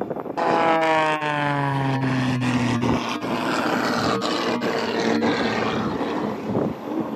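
Stunt biplane's engine sweeping past loudly, its pitch falling steadily as it goes by. Then the steady roar of a 38-foot Fountain center console's bank of outboard motors running at speed.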